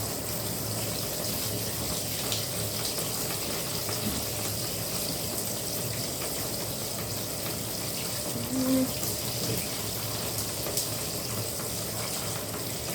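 Bathtub water running steadily from the tap, left on so that it warms up.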